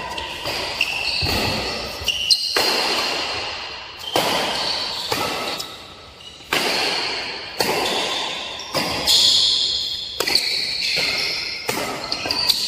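Badminton rally: rackets striking the shuttlecock about once a second, each hit echoing in a large hall, with short high squeaks of shoes on the court floor between hits.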